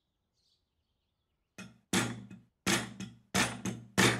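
A hammer tapping a small punch held against a brass cartridge-case lighter clamped in a vise. The sharp, ringing taps start about a second and a half in and come in pairs, a hard hit followed by a lighter one, roughly three times.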